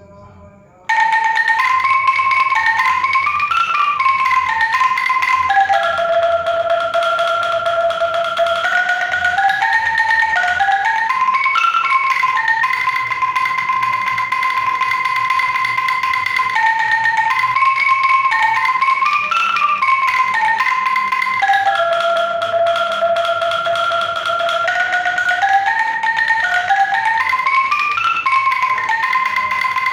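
Bamboo angklung set of 18 notes, each note with two tubes, shaken to play a melody. Each note is held as a sustained shaken tone, the notes step up and down the scale, and the tune repeats about halfway through. The playing starts about a second in after a brief pause.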